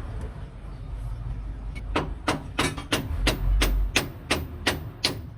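Hammer blows on metal, evenly spaced at about three a second and ringing sharply, starting about two seconds in, over a low steady rumble.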